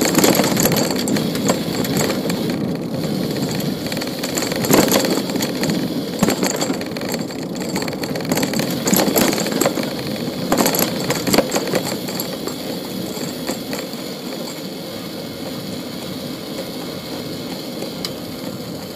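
Street noise heard from a moving bicycle: a steady rumble of road and traffic, with scattered knocks and rattles, easing off a little over the last few seconds.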